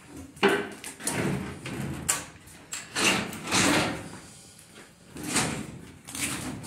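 Steel filing cabinet drawers being pulled open and pushed shut several times, sliding and rattling on their runners, with a sharp bang about half a second in.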